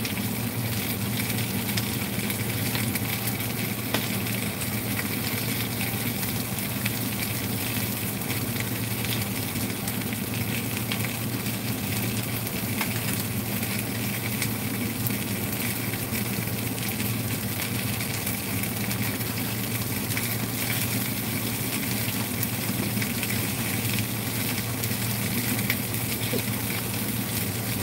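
Pieces of mayao fish frying in a little cooking oil in a nonstick pan: a steady sizzling hiss with scattered small pops, over a steady low hum.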